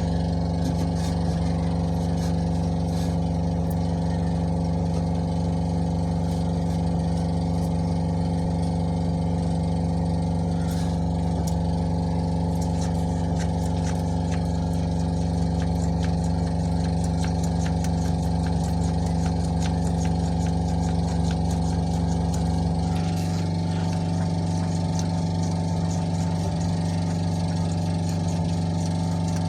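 A steady mechanical hum from a running motor at a constant pitch. Its deepest part drops away about 23 seconds in, and light clicks and taps sound over it.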